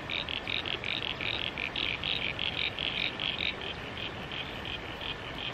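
Evening frog chorus: a steady run of rapid, evenly spaced high calls, about five a second.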